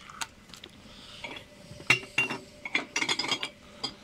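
Clinks and knocks of metal and glass: a metal jug striking the rim of a metal cooking pan and glass jars as hot menemen is scooped and poured for canning. The sharp, briefly ringing clinks come singly about two seconds in, then in a quick cluster around three seconds, and once more near the end.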